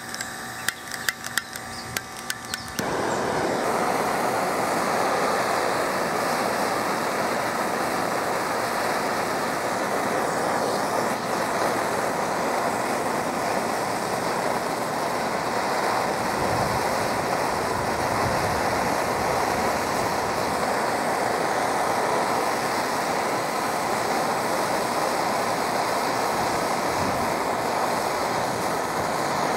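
A few clicks, then a propane torch lights about three seconds in and burns steadily, heating an aluminum boat hull for brazing with an aluminum rod.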